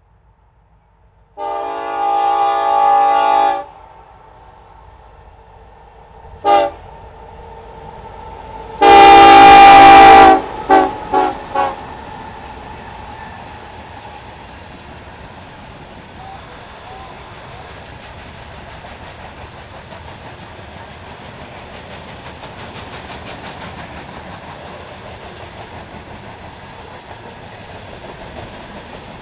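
Norfolk Southern locomotive air horn sounding a long blast, a short toot, a second long blast that is the loudest, then three quick toots. The train then rolls by with a steady rumble and clickety-clack of wheels over rail joints.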